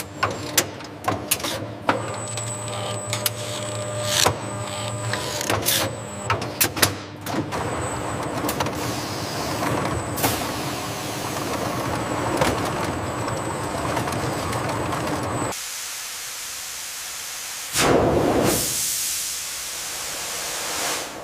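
Processing machinery clattering with frequent sharp clicks and knocks. About two-thirds of the way through it gives way to hissing steam, with one loud burst of venting steam near the end.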